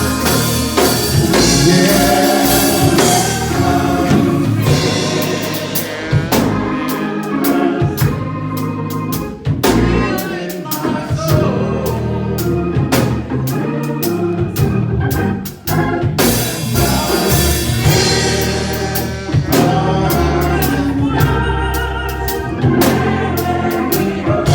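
Gospel song sung by a church choir and congregation, backed by organ and a drum kit with a steady beat.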